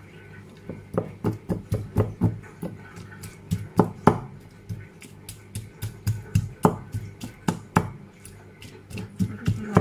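Avocado being pounded to a mash in a bowl with a long pestle-like masher: a run of dull knocks, about three or four a second, broken by short pauses.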